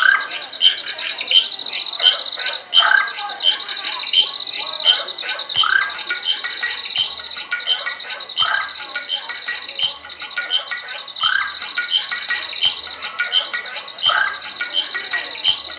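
A night chorus of crickets chirring steadily at a high pitch, with frog-like croaks coming back about every second and a half, each with a soft low thump.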